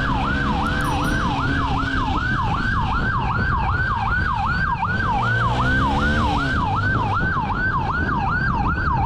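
Police motorcycle siren in fast yelp mode: a rapid rising-and-falling wail, about four sweeps a second, over the wind and engine rumble of the moving motorcycle.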